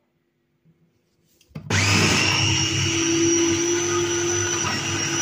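Electric mini chopper (small food processor) starting after a few faint clicks about a second and a half in, then running steadily with a high whine as it blends kiwi and cream.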